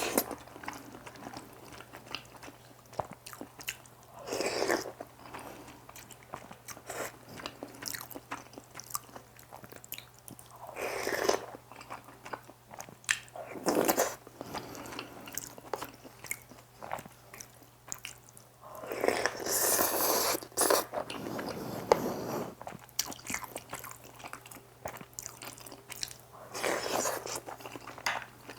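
Close-miked chewing of instant spicy seafood noodles and rice in soup: steady small wet clicks, with several louder noisy stretches of a second or two, typical of slurping noodles and broth.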